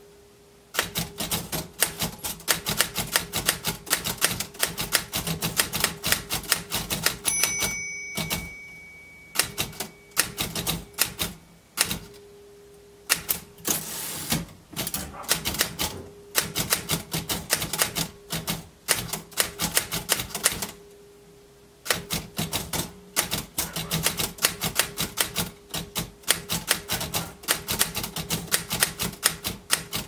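Royal manual desktop typewriter being typed on: fast runs of sharp key strikes broken by a few short pauses. Its margin bell rings once, about seven seconds in.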